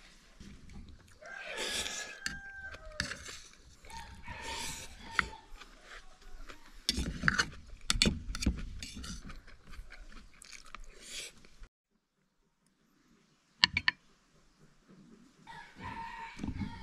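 Roosters crowing, a held call two or three times, with a cluster of knocks and clatter about halfway through. The sound drops out for about two seconds, then two sharp clicks.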